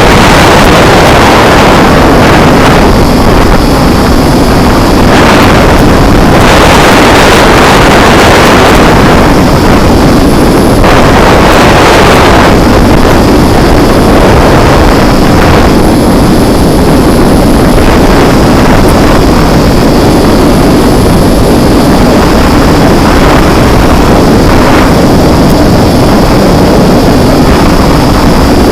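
TBS Disco Lite drone in flight, its motors and propellers making a steady whine under heavy wind rush on the microphone that surges in gusts.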